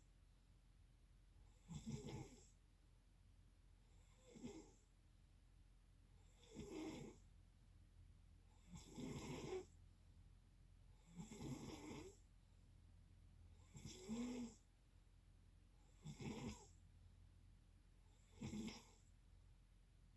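A sleeper snoring in a steady rhythm, one snore about every two and a half seconds, eight in all.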